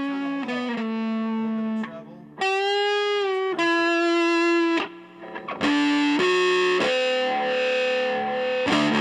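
Reverend Jetstream 390 electric guitar played lead through an Aionfx GC-1 clone pedal into a tube amp, with a distorted tone. It plays a few sustained single notes, one bent up and down, and a busier run starts near the end.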